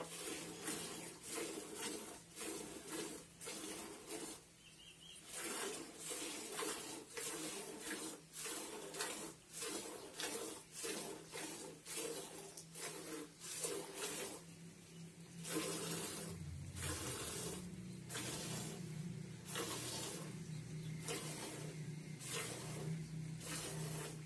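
A water buffalo being milked by hand: streams of milk hiss into a pail in a steady rhythm of about two squirts a second. A low steady hum sits underneath and grows louder about two-thirds of the way through.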